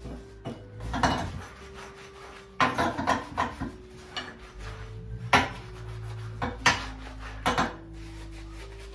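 Kitchenware being handled: dishes and utensils clattering and scraping, with a few sharp knocks, the loudest about five and a half seconds in. Soft background music runs underneath.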